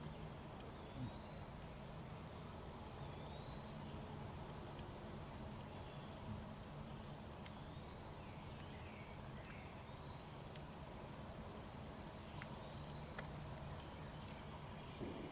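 A singing insect's steady, high-pitched buzz, held for about four seconds, fading to a fainter buzz for a few seconds, then starting again about ten seconds in for another four seconds.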